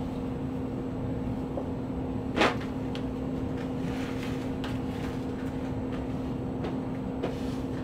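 A garment being handled and spread flat on paper sheets: one sharp rustle about two and a half seconds in, then a few faint rustles and taps, over a steady hum.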